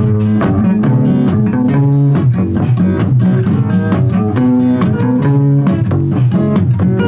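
Instrumental jam session recorded on tape: guitar and bass guitar playing a busy run of short plucked notes, with no singing.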